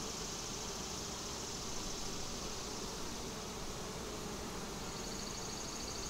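Honeybees buzzing over an open Langstroth hive frame: a steady, even hum, the sound of a calm colony.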